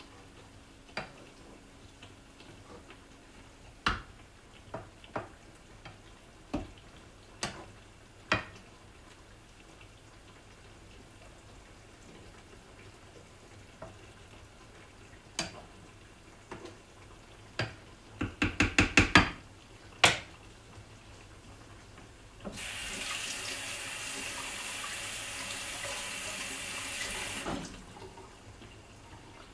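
Kitchen tap running for about five seconds near the end, after a series of scattered knocks and clicks. A little past halfway there is a quick run of about seven clicks.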